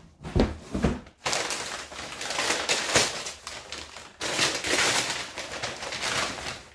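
Brown kraft packing paper crinkling and rustling as it is pulled off and crumpled by hand, after a few handling knocks in the first second.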